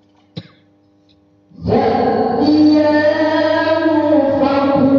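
A child qari starts Quran recitation (tilawah) about one and a half seconds in, with a loud, long-held melodic vocal line of wavering notes. A single sharp click comes just before, about half a second in.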